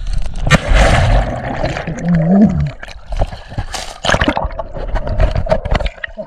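Lake water splashing and gurgling around a handheld waterproof camera as a swimmer moves it through the surface and under the water, giving irregular splashes and muffled underwater sloshing.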